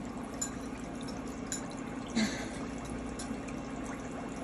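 Steady room noise, a low hum and hiss, with a few faint clicks and one brief louder click about two seconds in.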